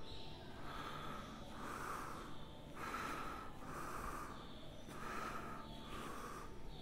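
A person breathing close to the microphone, soft breaths about once a second, over a faint steady hum.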